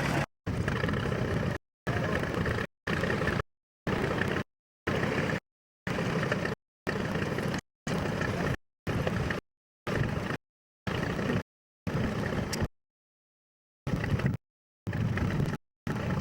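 Tractor engines running, heard through old camcorder audio. The sound is chopped into short pieces by regular dropouts to total silence about once a second, with a longer gap near the end.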